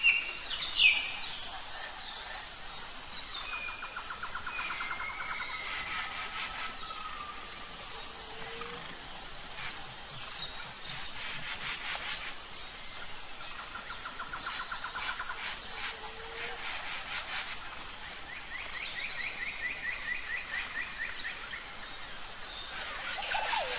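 Outdoor daytime ambience of wild birds calling and insects: a steady high, evenly pulsing insect chirping throughout, with bird trills that come and go and a few louder bird chirps at the very start.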